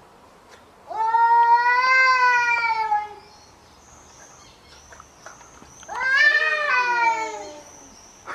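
Two cats in a fight standoff yowling at each other: two long, loud caterwauls of about two seconds each, the first rising then sagging in pitch, the second wavering and falling, the threat yowls of rival cats squared up before or between attacks.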